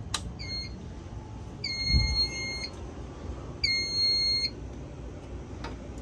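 Wheelock fire alarm horns sounding a steady electronic tone in three blasts: a short one at the start, then two of about a second each. A low thump of handling noise comes about two seconds in.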